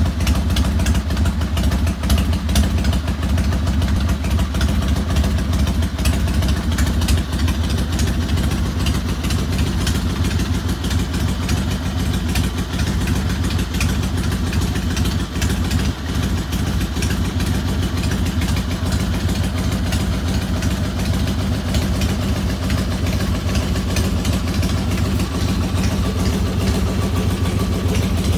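2001 Harley-Davidson Fat Boy's 88 cubic inch V-twin, fitted with a modified cam and Longshots exhaust, idling steadily.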